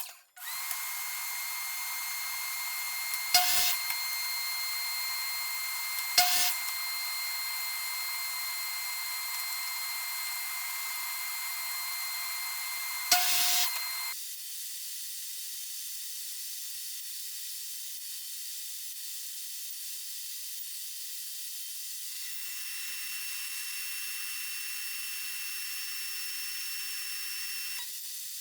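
Power tool motor running steadily with a high whine, broken by three sharp knocks. About halfway through the sound drops in level and its pitch changes, and it runs on steadily.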